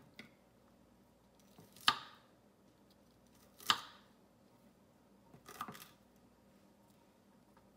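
Knife chopping broccoli florets on a wooden cutting board: three sharp knocks of the blade striking the board, roughly two seconds apart, the last a quick double knock.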